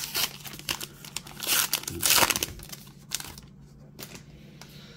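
A trading card pack wrapper is torn open and crinkled in the hands. The rustling comes in irregular bursts, loudest around two seconds in, and dies down after about three seconds.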